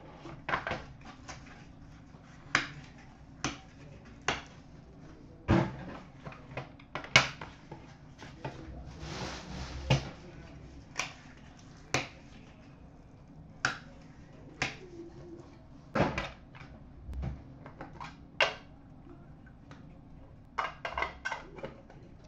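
Trading card packs being opened and handled over a glass counter: scattered sharp taps and clicks, with a longer rustle of wrapper about nine to ten seconds in.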